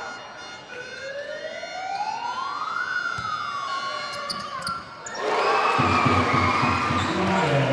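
A whistle-like tone glides upward for about two seconds and then sinks back. About five seconds in, the basketball crowd breaks into loud cheering.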